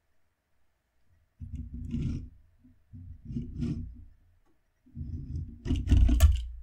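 A toy plane is scraped across a wooden desk in three separate pushes, with a few sharp knocks near the end as it is knocked off.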